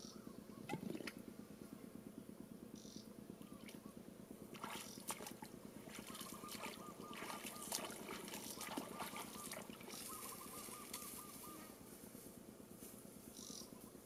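Bare feet splashing and sloshing through shallow muddy water and waterweed, in irregular sharp splashes, over a steady rapid pulsing chorus of small animals with a repeated trill in the middle.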